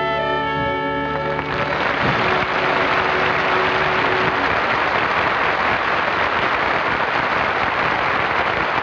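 A big band and orchestra hold a final chord that ends about a second and a half in. Then a large audience applauds steadily.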